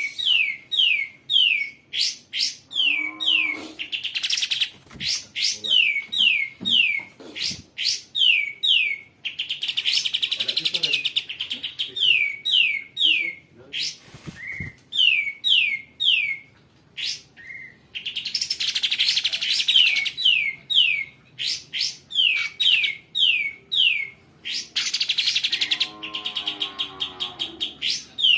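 Kapas tembak bulbul singing: runs of quick, clear, falling whistled notes repeated in series, broken several times by longer harsh, rasping passages.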